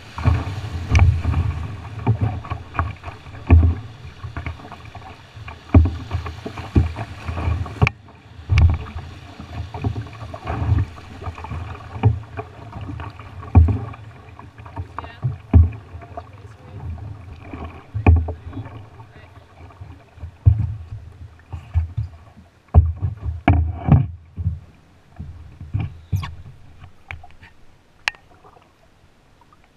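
Whitewater rushing around a canoe running a rapid, with repeated low thumps. About eight seconds in, the rush of the rapid falls away as the canoe reaches calmer water, leaving only occasional thumps and a few sharp knocks near the end.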